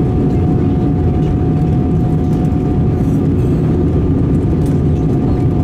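Steady cabin noise of an Airbus A320-216 heard from a passenger seat: the CFM56 jet engines and rushing airflow make a low, even roar, with a couple of faint steady tones running through it.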